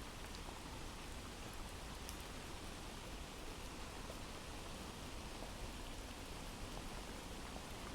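Recorded rain ambience: an even, steady hiss of falling rain with a few faint drop ticks.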